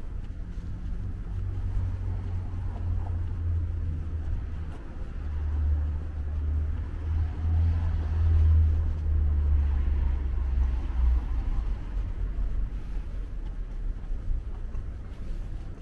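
Low engine rumble of a vehicle, swelling from about five seconds in to a peak a little past the middle, then fading.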